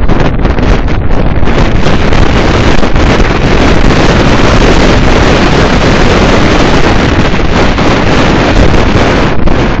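Loud, steady wind noise buffeting the microphone of a camera riding on a moving car.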